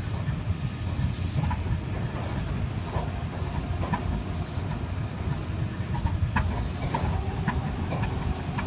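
GE U23B diesel-electric locomotive's V12 diesel engine running steadily with a low rumble, with several short hisses and small clicks over it.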